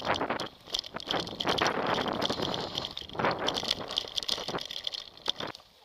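Mountain bike riding over rough forest singletrack, heard from an onboard camera: dense rattling and clicking from the bike and camera mount over a rush of tyre and wind noise, easing off near the end.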